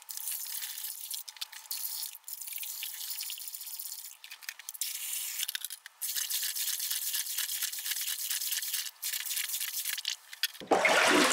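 Stiff plastic scrub brush scrubbing a soapy aluminium cylinder head in a tub of hot water and Simple Green degreaser: a thin, hissy scrubbing with a few short breaks.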